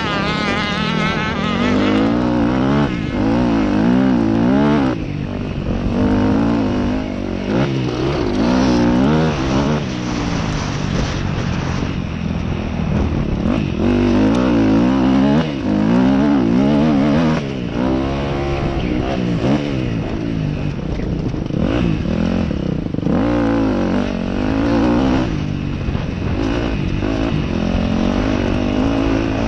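Motocross dirt bike engine ridden hard on a dirt track: revs climb through each gear and drop off again every few seconds as the rider shifts, chops the throttle and gets back on it.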